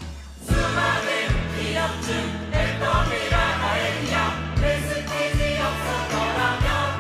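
A large mixed group of men and women singing together in Korean over a pop backing track with a steady drum beat and bass. The beat comes in strongly about half a second in.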